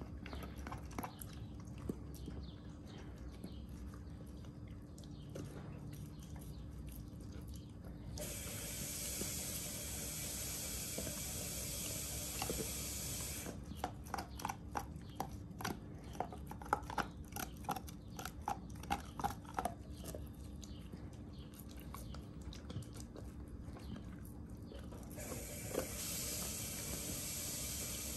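Doberman gnawing a big bone: scattered clicks and scrapes of teeth on bone, with a run of sharper, louder crunches around the middle. A steady hiss comes in twice for several seconds, over a low steady hum.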